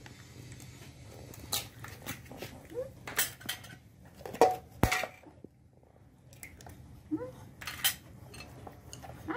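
Eggs being cracked on the rim of a ceramic bowl, with eggshells and a metal spoon clinking on china dishes: scattered sharp taps and clinks, the loudest about four and a half seconds in.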